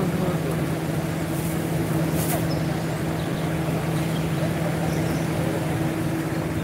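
A motor running steadily: a constant low hum that holds one pitch throughout, over a faint noise haze.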